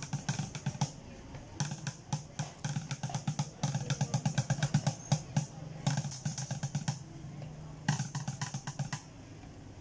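Drumsticks beating a homemade drum kit of recycled tins and buckets in fast runs of strikes, several a second, dying down just before the end.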